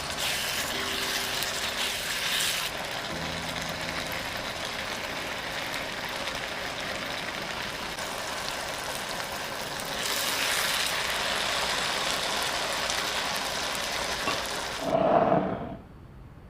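Chicken stir-frying in hot oil: a steady sizzle, then a short, louder low knock and the sizzling cuts off near the end.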